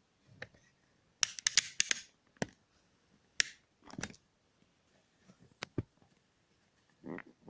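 Scattered sharp clicks and light knocks of handling: a quick cluster about a second in, then single clicks every second or so, and a softer, duller sound near the end.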